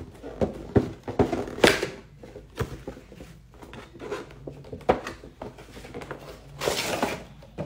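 Cardboard toy box with a plastic window being handled and opened: a run of knocks and taps as the box is turned and its flap worked, then a longer rustling scrape near the end as the insert slides out.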